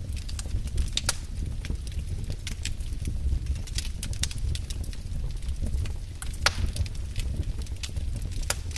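Wood fire burning in a fireplace: a steady low rumble of flames with irregular sharp crackles and pops, the loudest pops about a second in and a little past the middle.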